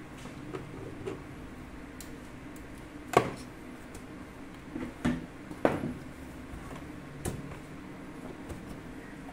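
Several sharp knocks and clinks of hard objects, the loudest about three seconds in, over a steady low hum.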